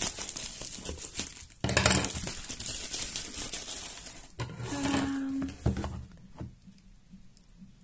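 Pink plastic bubble wrap crinkling and rustling as it is handled and a cardboard box is pulled out of it, loudest about two seconds in. The rustling dies down about six seconds in, leaving a few light taps as the box is set down.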